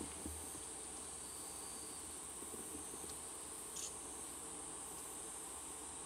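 Night insects chirring in a steady, high-pitched trill.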